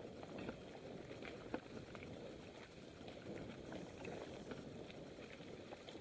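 Mountain bike riding over a dirt and leaf-covered singletrack: steady crunch and crackle of the tyres, with scattered sharp clicks and rattles as the bike goes over small stones and roots.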